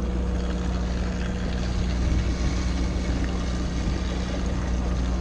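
Fishing boat's engine running steadily at idle, a constant low drone with a faint hum above it and some wind and water noise.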